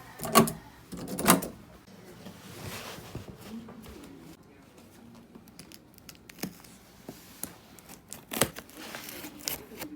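Cardboard box and packaging being opened and handled: scattered rustling and tearing, with sharper rips or knocks about half a second in, just after a second, and twice near the end.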